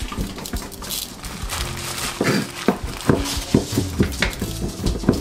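Kitchen knife chopping garlic on a cutting board: a string of irregular sharp knocks, coming thicker in the second half, with light kitchen clatter.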